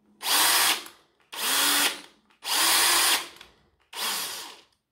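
Bosch GSB18V-21 18 V cordless combi drill's brushed motor run in four short bursts on the trigger, each spinning down when released, the last one shorter and weaker. It is the drill's fault of not running right, which the owner first suspects is down to worn carbon brushes.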